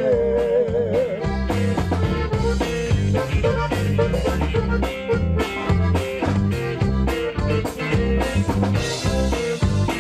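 Conjunto band playing: accordion-led music over a bouncing bass line and drums in a steady rhythm.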